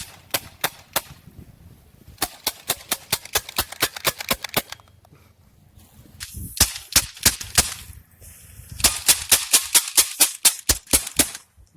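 Airsoft gun firing several rapid strings of sharp snapping shots, about five or six a second, with short pauses between the strings.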